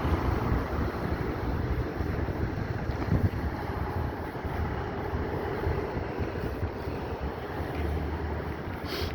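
Strong wind buffeting the microphone: a steady, gusting rush heavy in the low end.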